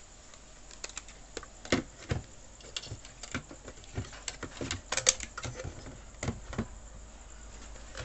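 Irregular small clicks and taps from handling a digital multimeter and its test probes over a TV circuit board, several sharper knocks among lighter ticks.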